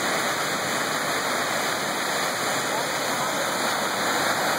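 Steady rush of water from a 45-foot waterfall plunging into its pool, loud and unbroken.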